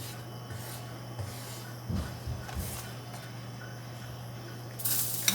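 A pan of oil heating on the stove, quiet apart from a steady low hum and a couple of soft knocks. Near the end, loud sizzling starts as garlic goes into the hot oil.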